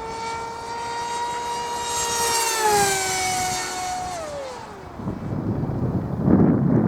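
HobbyKing Skyfun RC jet's electric motor and propeller whining as the model flies past. The whine grows louder, drops in pitch twice as the model goes by, and fades out about five seconds in. Gusty wind buffeting the microphone then takes over and is the loudest sound.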